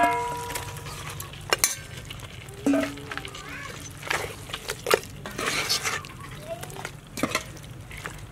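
A metal bowl clangs against an aluminium pot and rings briefly at the start as chunks of raw pork bone are dropped in; then a metal ladle stirs the meat through hot, sizzling spice paste, with scattered knocks and scrapes against the pot.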